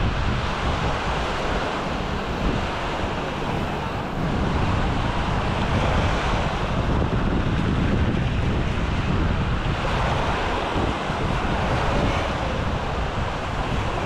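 Small waves breaking and washing up a sandy shore, swelling and easing every few seconds, with wind buffeting the microphone in a low rumble.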